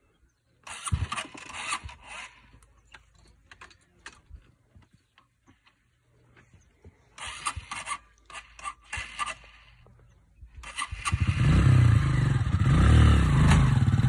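Red Honda CRF 125 dirt bike on rocks: short bursts of clattering and scraping, then about eleven seconds in its single-cylinder four-stroke engine starts and runs loudly, the revs rising and falling.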